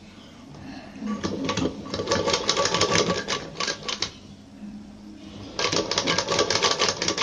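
Sewing machine stitching down the centre of a row of fabric dori cords, its needle clattering rapidly in two runs: about three seconds, a pause, then another run near the end.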